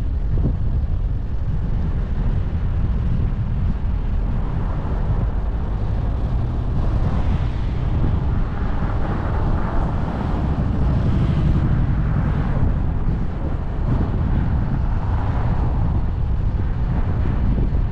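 Car driving at speed: a steady low rumble of wind and road noise, with the hiss swelling a little in the middle.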